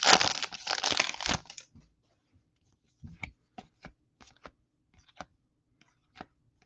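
Crinkly foil wrapper of a baseball card pack being torn open and pulled off the cards, for about the first second and a half. Then a run of light, sharp clicks as the cards in the stack are flipped through one by one.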